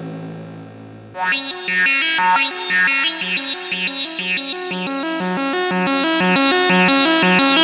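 Musonics Vanilla modular synthesizer: a held sound fades out, then about a second in a fast repeating pattern of short, bright notes starts. Its tone brightens and dulls as a knob on a module is turned.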